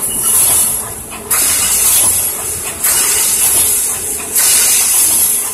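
Automatic welded wire mesh machine running its welding cycle: repeated hissing bursts, each starting sharply about every one and a half seconds and lasting more than a second, as the machine welds a row of cross wires and advances the mesh.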